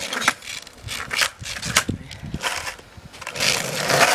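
Skateboard wheels rolling over rough asphalt, with several sharp knocks of the wooden board and shoes. The rolling noise grows louder near the end.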